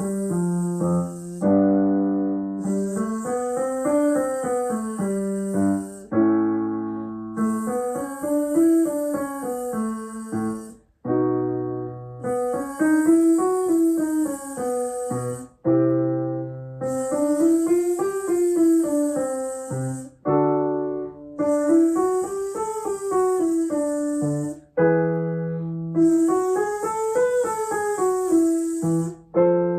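A singer buzzing on a voiced 'zzz' up and down a five-note scale over piano, about six times. Each pass is a step higher, with a piano chord setting the new key between them. It is a semi-occluded vocal tract warm-up, aimed at a buzzy sound like a bee.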